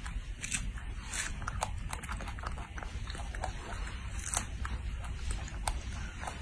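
A baby monkey biting and chewing strawberries, with irregular wet smacks and clicks over a steady low background noise.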